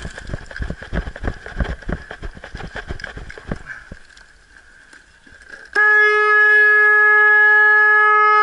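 Footsteps on grass and dirt for the first few seconds, then a loud horn that blasts one steady held note for about three seconds near the end.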